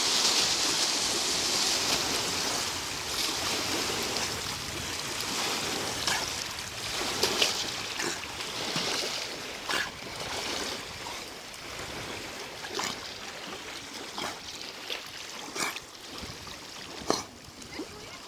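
Small lake waves washing and lapping at the shoreline. A steady rush of water fades after a few seconds, giving way to separate sharp splashes and slaps of water.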